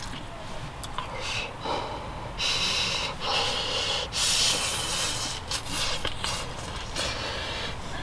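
A person eating rice from a spoon, breathing out in four or five short, breathy hisses one after another, with a few light clicks of the spoon.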